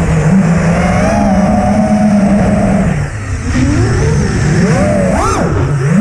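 FPV racing quadcopter's brushless motors and propellers whining over rushing wind. The pitch holds fairly steady at first, dips for a moment about halfway, then swoops up and down with the throttle, with a sharp rise and fall near the end.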